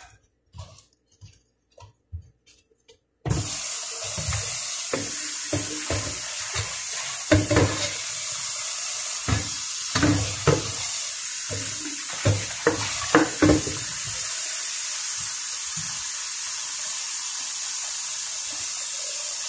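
Kitchen tap running steadily, switched on suddenly about three seconds in, with scattered light knocks and clatters of bowl and pot handling over it.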